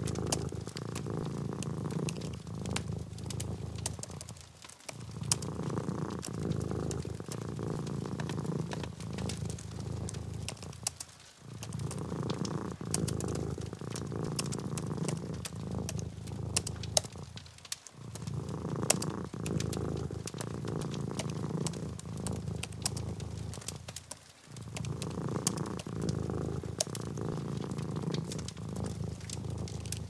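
Domestic cat purring, a low continuous purr that dips briefly about every six and a half seconds, with light scattered clicks over it.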